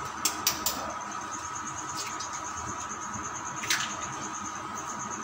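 Eggs being cracked on the rim of a steel bowl: three quick sharp taps near the start, then a single tap about two seconds in and another a little later.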